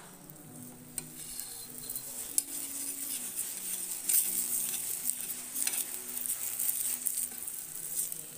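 Oil-brushed stuffed paratha sizzling on a hot tawa just after being turned over, with a few sharp clicks in the first couple of seconds; the sizzle grows louder from about four seconds in.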